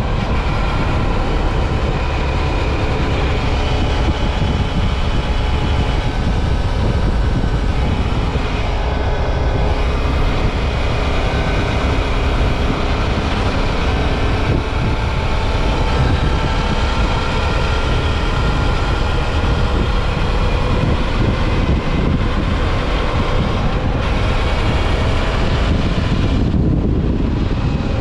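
Suzuki V-Strom 650 XT's V-twin engine running at road speed under heavy wind rumble on the microphone, its pitch drifting slowly up and down.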